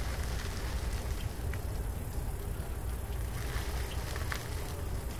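Steady low rumble of wind buffeting a moving camera's microphone during the ride, with a few faint clicks.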